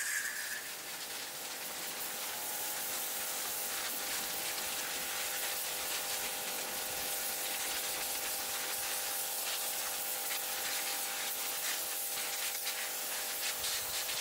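High-pressure water jet from a pressure-washer spray gun blasting dirt off sweet potatoes in a wicker basket: a steady hiss of spray spattering on the tubers, with a steady hum beneath it.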